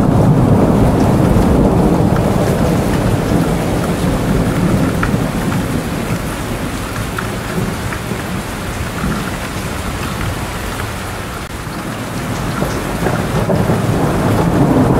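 Steady rain with a low rolling thunder rumble underneath and scattered drop ticks. The rumble eases about three-quarters of the way through and swells again near the end.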